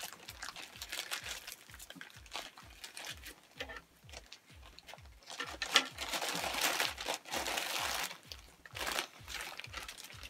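Clear plastic bag crinkling as it is pulled off a hard plastic toy box, densest and loudest about halfway through.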